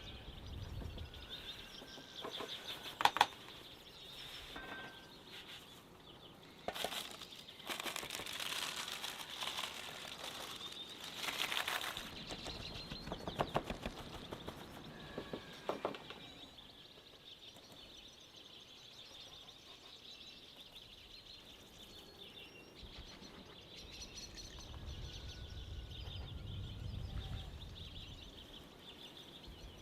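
Birds chirping in the background, with a few sharp knocks and a stretch of rustling and handling noise in the first half.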